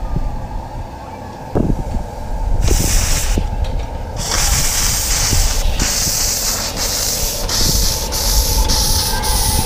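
Miniature live-steam locomotive starting away: a knock, then from about three seconds in long bursts of steam hiss that settle into an even rhythm of exhaust chuffs, quickening toward the end.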